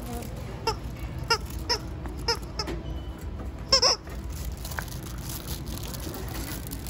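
Pit bull puppy whining in short, high, squeaky yelps, about six of them over the first four seconds, the loudest near four seconds in.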